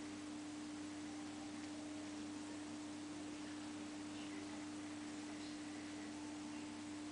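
A steady, mid-pitched hum on one unchanging tone over a faint hiss.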